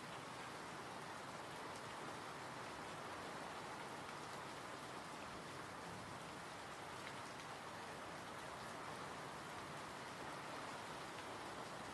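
Steady rainfall: an even, unbroken hiss of rain, with a few faint individual drop ticks.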